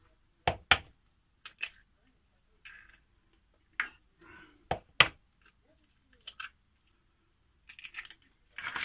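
Eggs being cracked open into a bowl: scattered sharp taps and clicks of eggshell knocking and breaking, the loudest about five seconds in, with a short flurry near the end.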